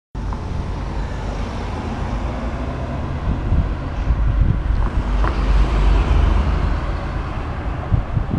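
Cars driving past close by on a street, with engine and tyre noise and a deep low rumble that swells to its loudest in the middle.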